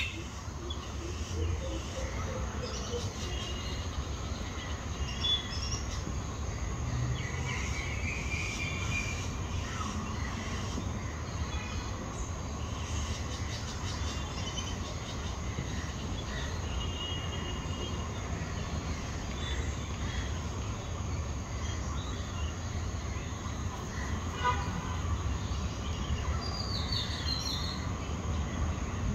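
Outdoor background: a steady low rumble with a few faint, scattered bird chirps.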